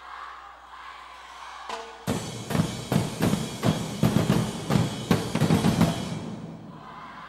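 Drum ensemble playing: softer music for about two seconds, then a loud run of heavy drum strikes, about three a second, that dies down near the end.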